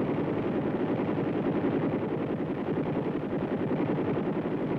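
M60 machine gun firing one long unbroken burst of automatic fire: a rapid, steady rattle of shots.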